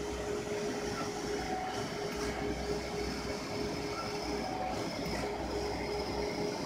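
HP wide-format inkjet printer running, its print-head carriage moving back and forth over the media. There is a steady hum and a faint sound that repeats about every three seconds.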